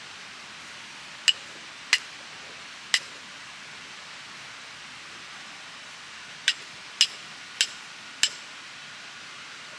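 Sharp metal-on-metal strikes, seven of them, spaced irregularly: three close together near the start and four about half a second apart later on. The later strikes leave a faint ringing tone. A river rushes steadily underneath.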